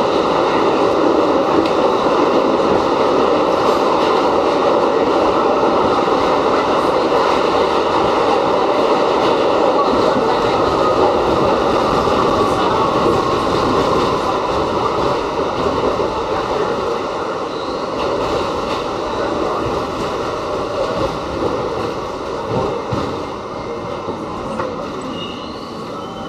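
R68 subway car running through a tunnel, heard from inside the car: a steady, loud rumble and rattle of the wheels on the track. It grows quieter over the last ten seconds or so as the train slows into a station, with faint high tones near the end.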